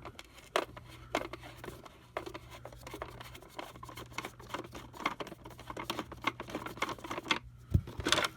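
Screwdriver backing a screw out of the Oreck U7250ECS vacuum's plastic housing: irregular small clicks and scrapes of the bit and screw, with a louder knock near the end.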